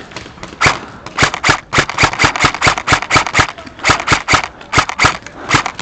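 Airsoft guns firing in quick bursts of sharp cracks, several shots a second, with short pauses between the bursts.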